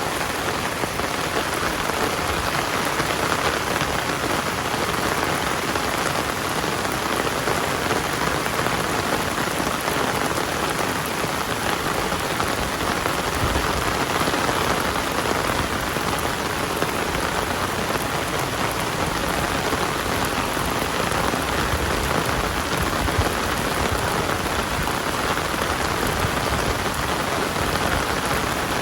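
Heavy rain pouring down steadily, a dense, even hiss of drops hitting surfaces.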